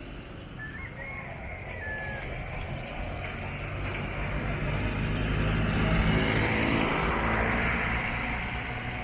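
A motor vehicle passes close by: its engine hum and tyre noise build up, are loudest about six seconds in, then fade.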